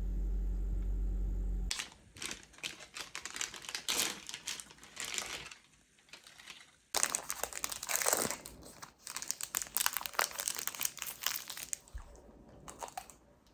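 A steady low hum that stops about two seconds in, followed by crinkling and rustling of packaging being handled, in irregular bouts with a short pause in the middle.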